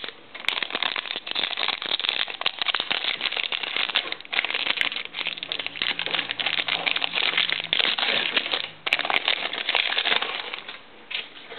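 Crinkling and crackling of a trading card pack wrapper being torn open and handled, with short dips in the noise.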